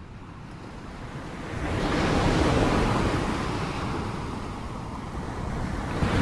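Sea waves surging and breaking: the wash builds to a peak about two seconds in, eases off, then surges again near the end.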